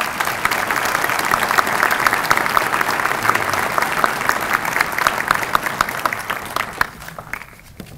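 Audience applauding: many hands clapping in dense, even applause that thins out and dies away about seven seconds in.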